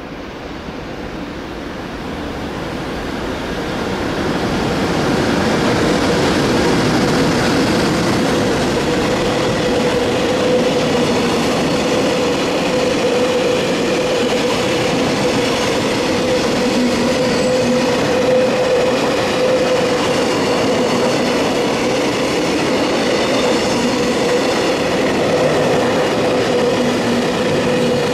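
Freight train passing close: an EH500 electric locomotive hauling a long train of container wagons. It grows louder over the first few seconds as the locomotive draws near, then holds at a steady level as the wagons' wheels run over the rails, with a steady hum throughout.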